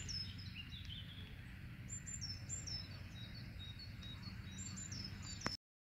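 Small birds singing: repeated short, high notes that sweep downward, over a steady low rumble. The sound cuts off with a click about five and a half seconds in.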